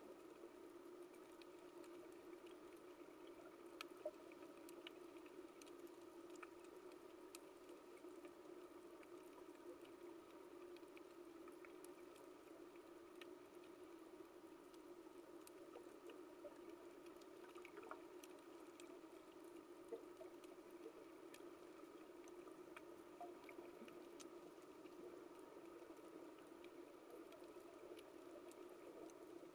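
Faint underwater reef ambience: a steady low hum with scattered small clicks and crackles, two slightly louder clicks about four and twenty seconds in.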